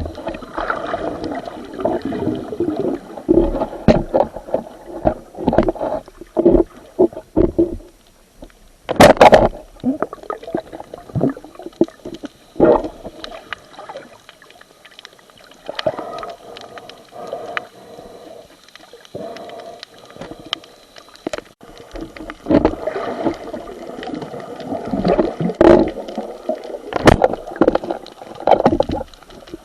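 Water gurgling and sloshing in irregular bursts around an underwater camera, with a few sharp knocks, the loudest about nine seconds in and near the end.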